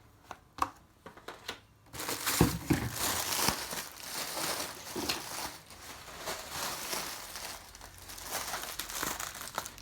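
Packaging being handled and crinkled while the box is opened. A few faint clicks come first, then continuous crinkling and rustling starts about two seconds in.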